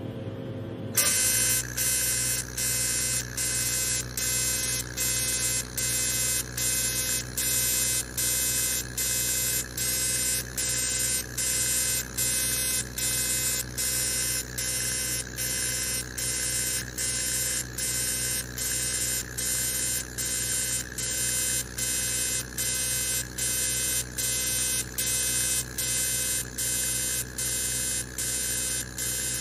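Fractional laser machine buzzing as it fires, an electronic tone broken by short gaps about one and a half times a second, starting about a second in.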